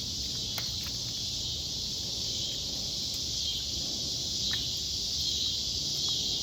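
Steady, unbroken high-pitched chorus of insects, with a few faint clicks over it.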